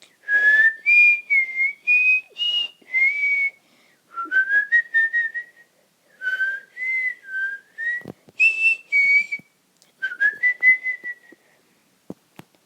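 A person whistling a tune: clear gliding notes in four short phrases with brief pauses between them.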